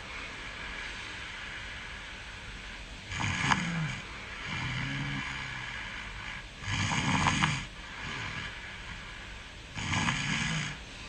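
A sleeping person snoring: three loud snores about three seconds apart, with a softer, lower breath out after the first, over a steady background hiss.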